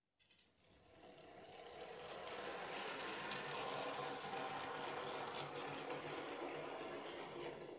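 N-gauge model locomotive running along the track: a steady whirring, rushing noise that fades in over the first two seconds and then holds even.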